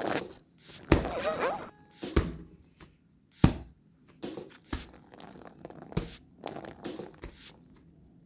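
A series of about six knocks or thunks, roughly a second and a quarter apart, the first followed by a brief wavering squeak.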